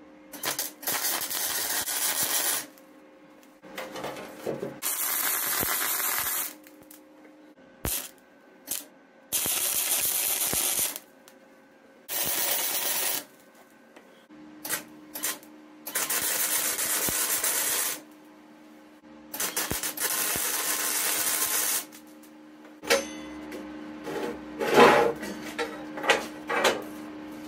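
MIG welder tack-welding mild steel: a series of crackling, hissing arcs, each lasting from a brief blip to about two seconds, with pauses between as each leg is tacked. A few knocks near the end.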